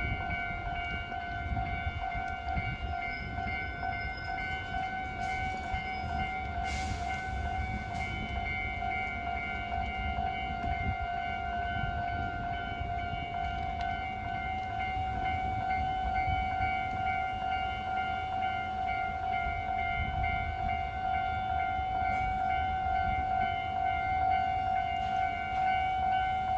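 Railway level-crossing alarm sounding a steady high tone throughout, over the low rumble of an EH500 electric locomotive hauling a container freight train past the crossing. There is one sharp click about seven seconds in.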